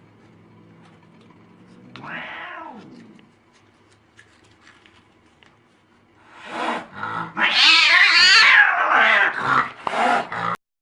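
Domestic cat crying: one short meow about two seconds in, then a loud, long yowl with a wavering pitch that cuts off suddenly near the end.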